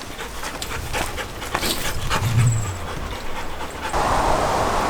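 A dog panting, with light rustling. About four seconds in, a steady rushing hiss abruptly takes over and is louder.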